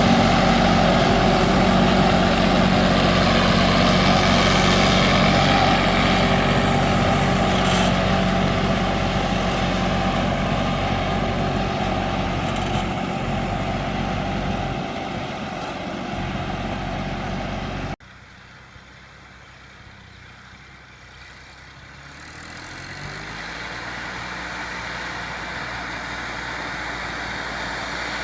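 Tractor diesel engine running steadily, loud at first and slowly fading. After an abrupt cut about two-thirds through it is much quieter, then grows louder as its pitch rises.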